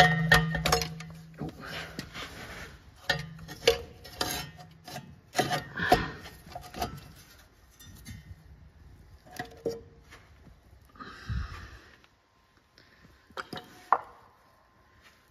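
Metal engine parts handled by hand: a run of clinks, knocks and scrapes, busiest in the first half, with a brief scrape later and a couple of knocks near the end as the timing cover is handled on a concrete floor.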